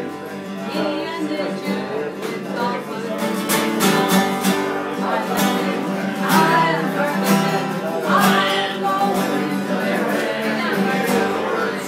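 Live folk music: acoustic guitar strumming steadily, with voices singing along.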